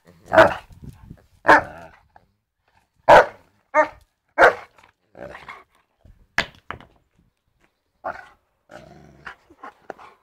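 A young Newfoundland dog barking in play. There are about five loud barks in the first five seconds, then a run of softer, shorter barks.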